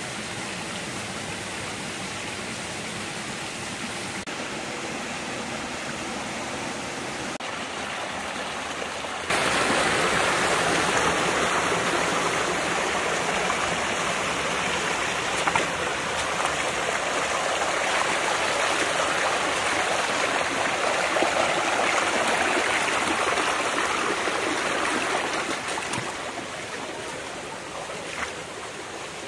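Shallow rocky stream running and splashing over stones, a steady rush of water that turns suddenly louder about nine seconds in and eases off near the end.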